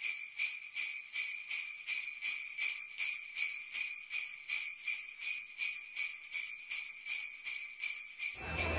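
Sleigh bells shaken in a steady, even rhythm, about two and a half shakes a second, thin and high with no low end. About a second before the end they cut off abruptly, and the loud hubbub of a crowd takes over.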